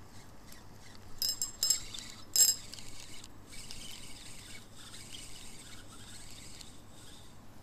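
Small metal objects clinking sharply with a brief bright ring: a quick run of clinks just after a second in, another shortly after, and the loudest one at about two and a half seconds.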